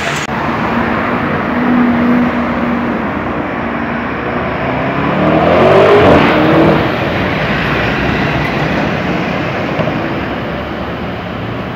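Car engine accelerating hard, its pitch shifting, loudest about six seconds in, over steady road traffic.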